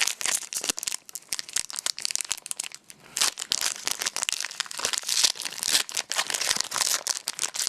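A Pokémon booster pack's foil wrapper crinkling and tearing as it is handled and opened. Scattered crackles at first, becoming a dense crinkle from about three seconds in.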